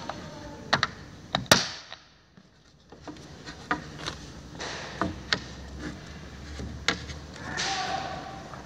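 Sharp clicks and taps of plastic slat holders being pressed into the steel side rail of a wall-bed frame, the loudest about one and a half seconds in. A short scraping comes near the end as a wooden bed slat is slid into a holder.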